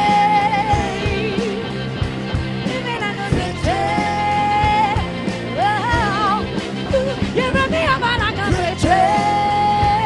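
Live rock band playing: a woman's lead vocal holding long notes with vibrato over electric guitar, bass guitar and a drum kit, with a harmonica joining in.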